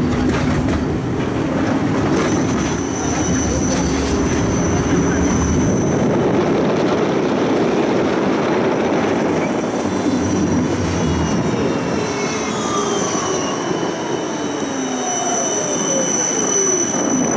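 Siemens Combino low-floor tram running on the rails, with a steady rumble and a steady high-pitched wheel squeal. Over the last few seconds the motor whine falls in pitch as the tram slows toward a stop.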